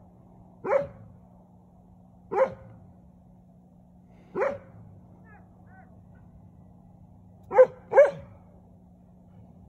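A dog barking five times at intervals of about two seconds, the last two barks close together, over a faint steady low hum.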